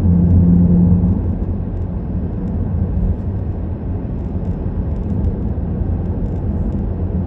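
Car driving on an open road: steady engine and tyre rumble, a little louder in the first second.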